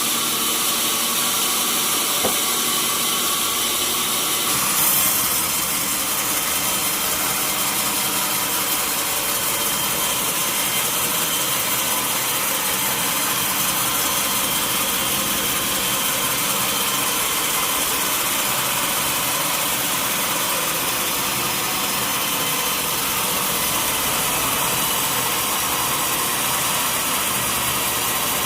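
Sawmill machinery running steadily, a dense mechanical noise with a brief swell about five seconds in.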